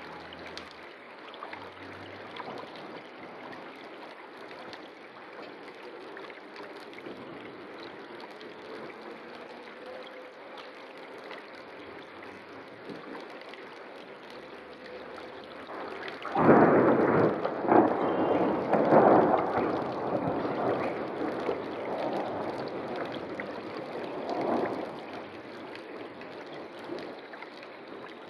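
Steady rush of a river, with a loud thunderclap breaking in about sixteen seconds in and rolling on in several swells before dying away some nine seconds later.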